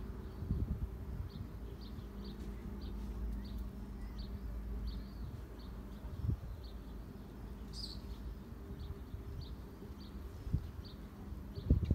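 A small bird chirping over and over in short high notes, about two or three a second, over a steady low background rumble with a few soft bumps.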